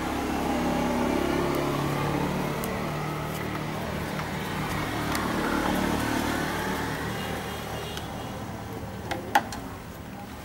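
Motor vehicles passing: an engine hum with slowly shifting pitch that swells twice and then fades. A sharp click near the end.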